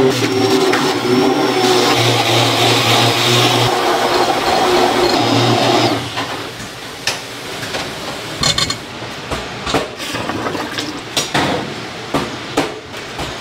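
A motor-driven machine runs steadily with a hum, then cuts off suddenly about six seconds in. After that come scattered knocks and clatter.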